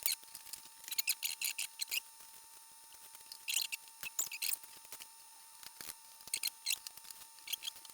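Small plastic building blocks clicking and clattering as they are handled and sorted, in several short flurries of light clicks.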